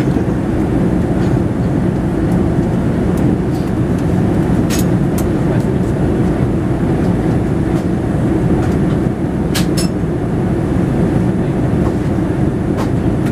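Steady cabin roar of a Boeing 787-10 in flight, heard from a window seat: engine and airflow noise during the descent. A few light clicks about halfway through.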